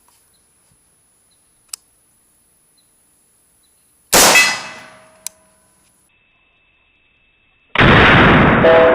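A single rifle shot from an AR-15 in 5.56 fitted with a custom muzzle brake, sharp and very loud about four seconds in, dying away over about a second. A second, longer loud blast follows near the end.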